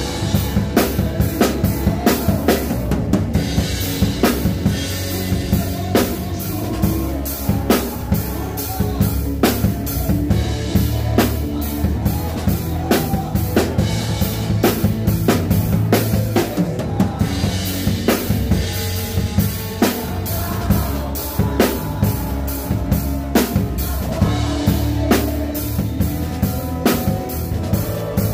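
Odery drum kit played with a live band, heard close up from the kit: a steady beat of bass drum, snare and cymbals over a guitar and bass backing.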